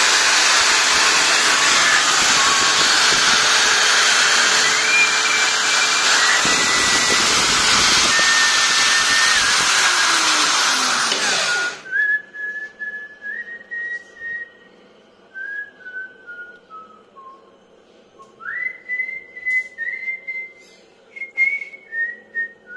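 An electric drill clamped in a bench stand runs as a makeshift lathe while a hand file cuts a steel pin spinning in its chuck, giving a loud steady rasping noise. About halfway through the drill is switched off and winds down. A man whistles a tune throughout, heard clearly once the drill stops, with a few light clicks of handling.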